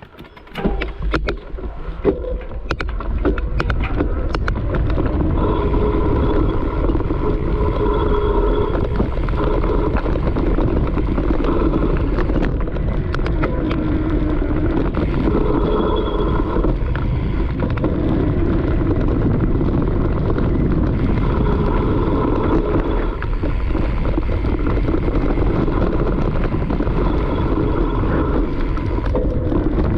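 Mountain bike riding fast down a dirt forest trail: wind rushing over the camera microphone and tyres rumbling over the ground, with sharp clicks in the first few seconds as the ride gets going.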